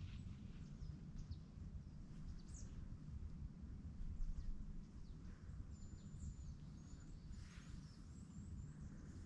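Faint outdoor ambience: a steady low wind rumble on the microphone, with scattered short high bird chirps and a few thin whistled notes about six to eight seconds in.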